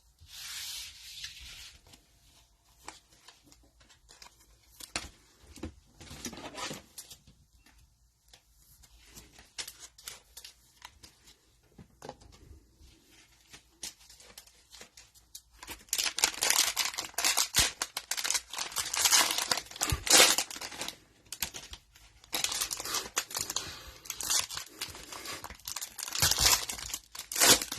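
Cellophane wrapper of a trading card cello pack being torn open and crinkled. Scattered light rustles and clicks at first, then from about halfway through, loud continuous crinkling and tearing with a brief pause.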